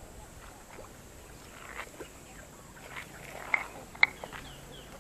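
Quiet outdoor background with a few short, sharp clicks, the two loudest about three and a half and four seconds in.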